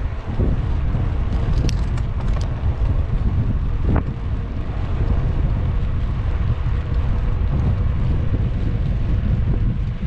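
Wind buffeting the microphone of a camera on a moving bicycle, a steady heavy rumble, with a few sharp clicks about two and four seconds in.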